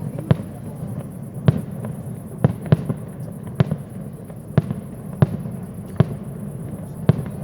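Aerial fireworks bursting: about nine sharp bangs at irregular intervals, roughly one a second, over a steady low rumble.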